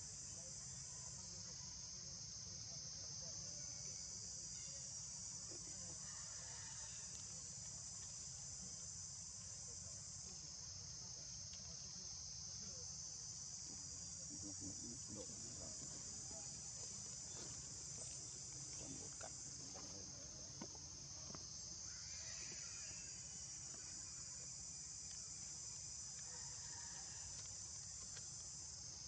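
Steady high-pitched insect chorus, droning without a break and swelling slightly now and then.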